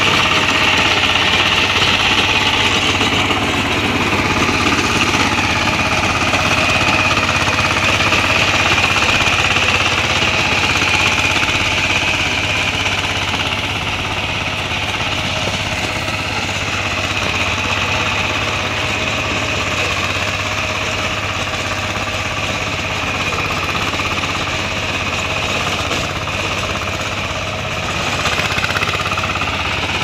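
VST power tiller's engine running steadily while its rotary tiller works through grassy soil.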